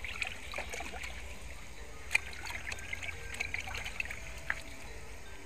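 Water sloshing and trickling in a plastic basin as raw chicken pieces are washed and turned by hand, with small scattered clicks and one sharper knock about two seconds in.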